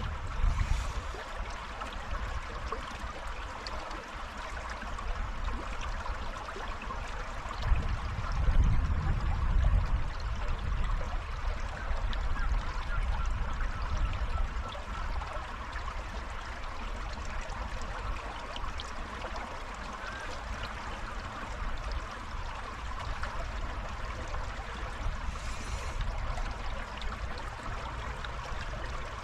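River water flowing steadily over stones, a constant rushing babble. Low rumbling swells come about a second in and again around eight to ten seconds in.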